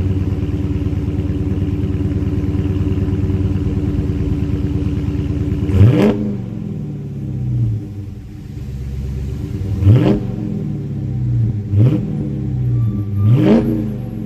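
Dodge Challenger Scat Pack's 392 Hemi (6.4-litre V8) with active exhaust idling, then revved four times in quick blips, each rise in pitch dropping straight back to idle; the third blip is shorter than the others.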